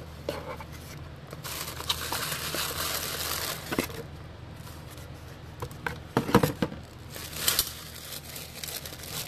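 Tissue paper rustling and crinkling as it is unfolded and pulled open by hand, with a few louder knocks a little past the middle.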